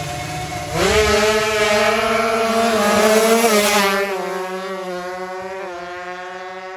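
Tuned 155 cc two-stroke sport motorcycle racing off the drag-strip start at high revs. The engine note jumps up sharply about a second in, dips briefly at each upshift, then fades as the bike runs away down the strip.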